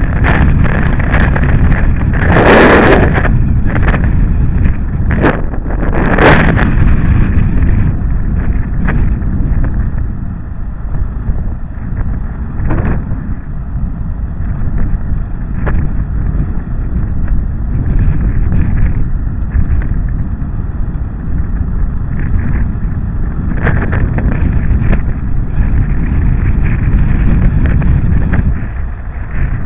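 Riding noise of a Yamaha XT660Z Ténéré's single-cylinder engine and tyres on gravel, buried in wind rushing over the camera microphone. A couple of sudden louder bursts come in the first several seconds.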